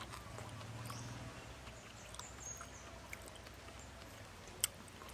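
Faint outdoor background with a short, high bird chirp about halfway through, soft mouth sounds of chewing raw beef liver, and one sharp click near the end.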